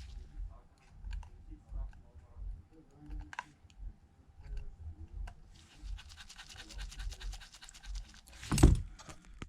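Handling noise: scattered small clicks and knocks, a fast rattle of clicks for about three seconds past the middle, then one loud thump near the end before the sound cuts off.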